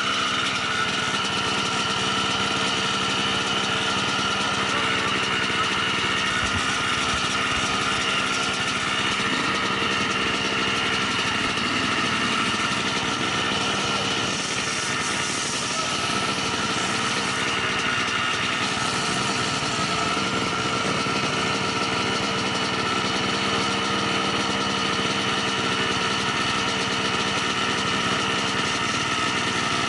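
Dirt bike engine running at a steady pitch, over a constant hiss.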